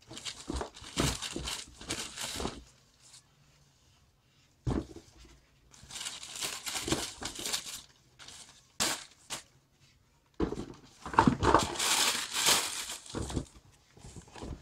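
Thin printed wrapping paper crinkling and rustling as it is unfolded from around a pair of shoes in a cardboard shoebox. It comes in several bouts with short pauses and is loudest near the end, with a single short knock about five seconds in.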